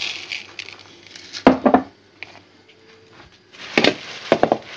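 Dry rice grains pouring from a glass into a plastic bowl, trailing off just after the start, then two short bursts of knocking and clattering as the plastic bowl and glass are handled and set down.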